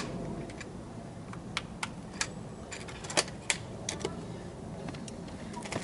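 Irregular light clicks and taps of small plastic parts being handled, about a dozen over a few seconds, the two sharpest a little past the middle.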